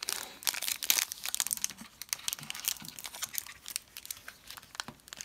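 Foil wrapper of a Pokémon trading card booster pack crinkling and tearing as it is pulled open by hand, a dense run of crackles, loudest in the first second or so.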